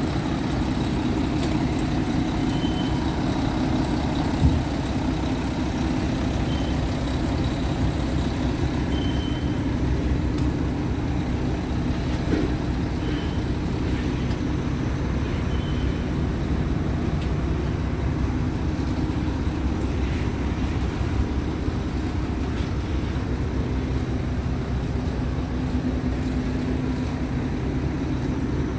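Scania R-series tipper truck's diesel engine idling steadily, with one short knock about four seconds in.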